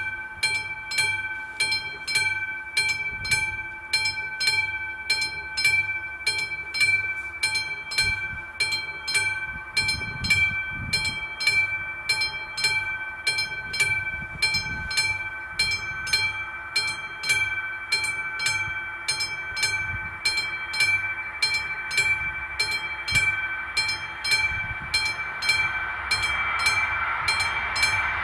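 Railway level-crossing warning bell ringing in a steady, even rhythm while the crossing lights flash. An approaching train's rumble rises under it near the end.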